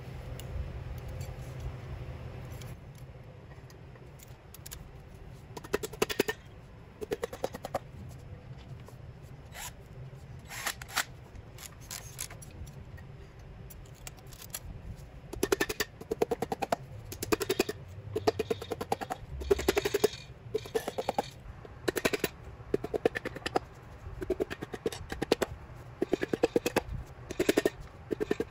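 Hand ratchet clicking in quick runs, over and over through the second half, as the connecting-rod cap nuts of a Ford 351 Windsor short block are run down. A few shorter runs of clicks come earlier.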